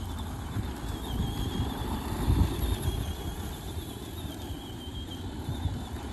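Traxxas Bigfoot No. 1 electric RC monster truck driving and turning on loose gravelly dirt: a thin, high motor whine that wavers up and down with the throttle over a low rumble of tyres on gravel, louder for a moment a little over two seconds in.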